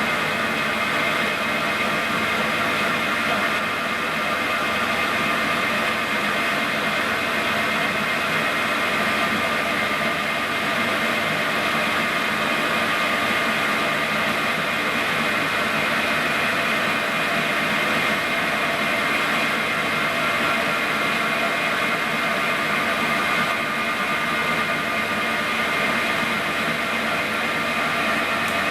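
Victor 1640 engine lathe running steadily under power, its spindle and gearhead making an even whine of several high tones over a mechanical hum.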